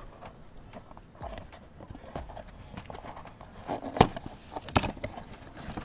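Scattered light clicks and knocks, like small hard objects being handled, with one sharp knock about four seconds in and another just before five seconds.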